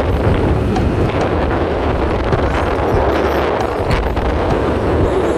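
Steady wind buffeting on a helmet-mounted camera microphone while riding a Yamaha NMAX scooter at road speed, a dense rushing noise that covers the scooter and road sound underneath.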